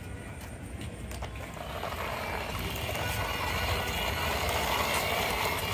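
Hard plastic wheels of a hand-pushed toy tanker truck rolling and scraping along a rough concrete wall top, getting louder about two seconds in.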